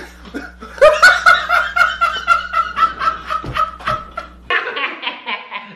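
Men laughing hard, loud laughter in quick repeated pulses starting about a second in and dying down near the end.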